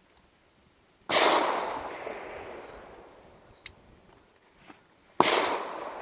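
Two gunshots about four seconds apart, each trailing off in a long echo.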